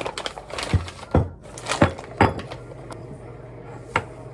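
A handful of irregular knocks and clinks, hard objects being handled and set down on a surface. The loudest single thump comes about four seconds in.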